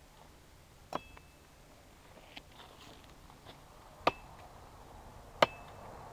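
Machete chopping into a guava branch: three sharp strikes, about a second in, at about four seconds and near the end, the last two the loudest, each with a short ring from the blade, cutting the Y-shaped fork free.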